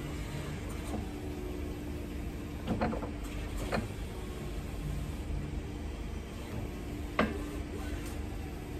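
Doosan B18X-7 electric counterbalance forklift's hydraulic pump motor humming steadily as the mast is tilted back and forth, with a few sharp knocks from the mast, about three, four and seven seconds in.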